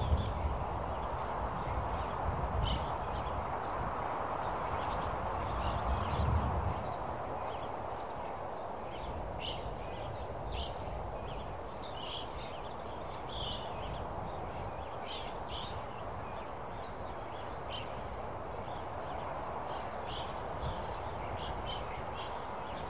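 Open-country outdoor ambience: a steady rushing background with scattered short bird calls, plus a low rumble during the first several seconds.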